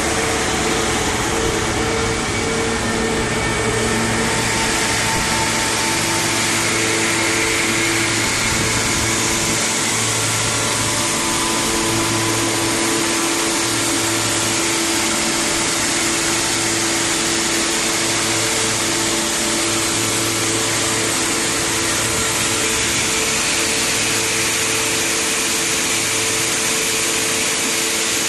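Road shot blasting machine running steadily, blasting steel shot onto steel plate with its vacuum dust collector drawing. It makes a loud, even hiss with a few steady hum tones underneath.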